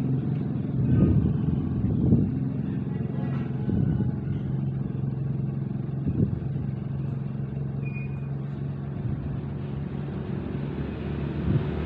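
A steady low hum with a few soft thuds in the first half.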